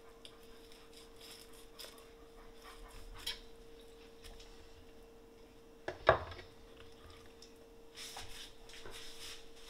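Fillet knife slicing and scraping a walleye on a wooden cutting board, with small scattered clicks, and one sharp knock about six seconds in. A rustle follows near the end, over a faint steady hum.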